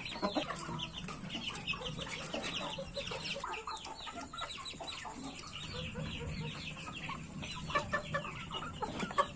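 Chickens clucking, with many short, high, falling peeps several times a second and a few louder calls near the end.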